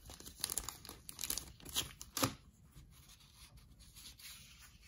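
1990 Fleer baseball cards and their packaging being handled: crisp rustling, crinkling and scraping of card stock and wrapper, with a sharp snap a little past two seconds, then softer rustling.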